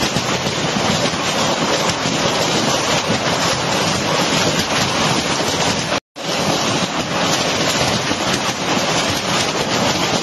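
Heavy wind-driven rain pelting down on flat concrete roofs, a steady, dense roar of countless drops with wind noise on the microphone. It cuts to silence for a moment about six seconds in.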